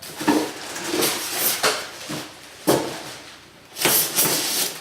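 Cardboard box and packaging being handled and rummaged through: a run of irregular scrapes and rustles, with a sharp knock near the middle and the longest rustle near the end.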